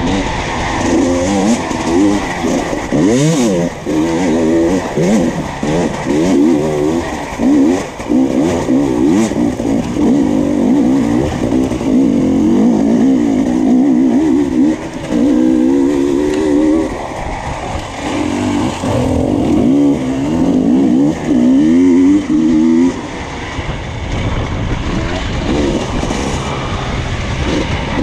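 Enduro motorcycle engine heard from on board, revving up and down constantly as the throttle is opened and closed, with short dips between bursts. Near the end the engine note drops lower and quieter.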